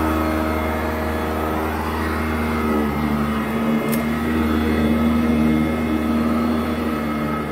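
Modified 2010 Sanitaire SC899 Type F commercial upright vacuum running over carpet: a steady motor hum whose pitch shifts slightly about three seconds in, with a single sharp click about four seconds in.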